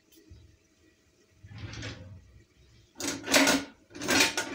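Hands rolling and sliding strips of poppy-seed dough across a tiled countertop: a soft scrape about halfway through, then two louder rubbing scrapes near the end.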